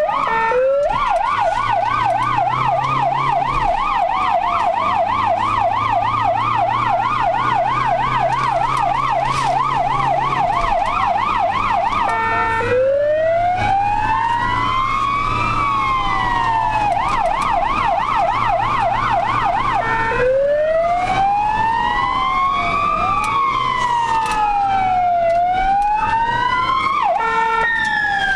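Ambulance siren heard from inside the vehicle's cab, switching several times between a rapid up-and-down yelp and a slower rising-and-falling wail, over the low drone of the engine.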